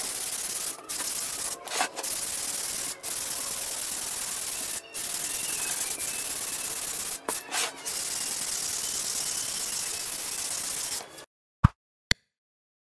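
Round sanding pad with abrasive disc rubbing back and forth over a wooden board, a steady hiss broken by several brief gaps. It stops suddenly about eleven seconds in, followed by a couple of short clicks.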